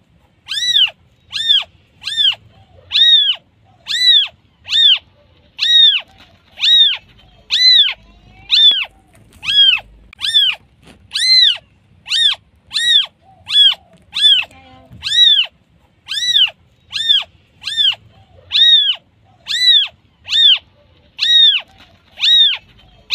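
A newborn kitten meowing over and over, a high, thin call a little more than once a second, each call rising and then falling in pitch: a neonatal kitten calling for its mother.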